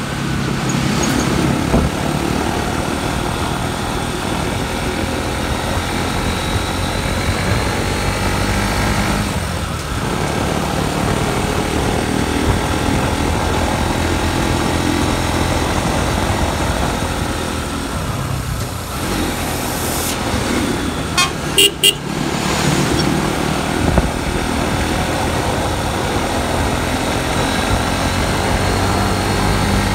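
Motorcycle engine running steadily while riding, with two or three short horn beeps about twenty seconds in.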